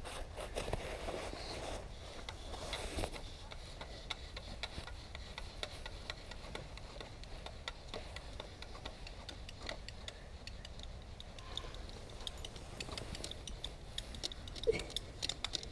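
Bow drill being worked: the wooden spindle rubbing and scraping in the fireboard with each stroke of the bow, with many small ticks. The set is not producing a coal.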